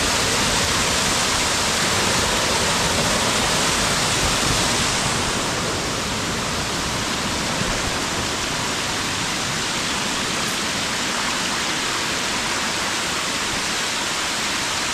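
Waterfall rushing over rock close by: a steady, dense hiss of falling water that eases a little about five seconds in.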